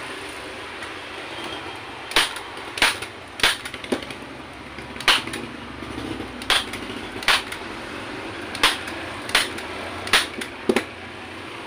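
Hand-held manual staple gun firing staples through a seat cover into a motorcycle seat base: about a dozen sharp snaps, irregularly spaced, starting about two seconds in.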